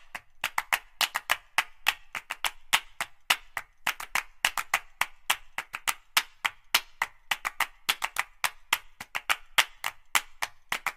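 Background music in a sparse percussive passage: rapid dry clicks, about six a second, with no bass or melody.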